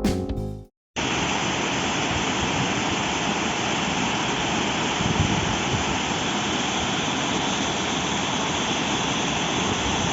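Waterfall's steady rush of falling water, coming in abruptly about a second in after guitar music cuts off.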